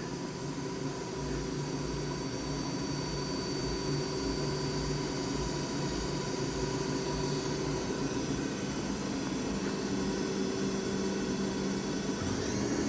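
Daewoo DMV-3016 CNC vertical machining center running, its spindle turning at about 2,000 RPM while the axes traverse: a steady mechanical hum and whine with several steady tones. Near the end the whine begins to rise as the spindle speeds up toward 3,000 RPM.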